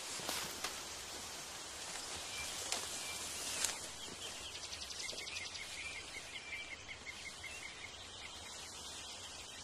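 Forest ambience with a steady hiss of the outdoors and a few sharp snaps of brush underfoot in the first four seconds, the loudest near the end of them. After that come repeated high chirps, with a short rapid trill about halfway through.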